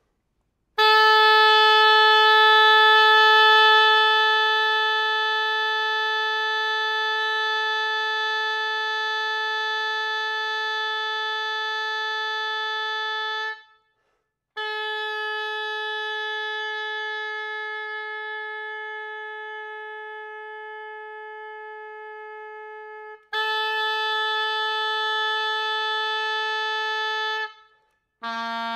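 Oboe playing three very long held tones on the same pitch, separated by short breaks; the first, about twelve seconds long, starts loud and eases off, and the second slowly fades. A lower note begins right at the end.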